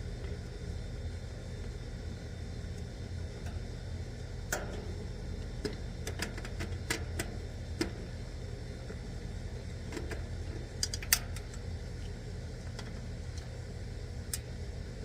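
Scattered sharp clicks and metallic taps of hand tools and wire terminals while an air-conditioner condenser's contactor is being disconnected, the loudest about eleven seconds in, over a steady low rumble.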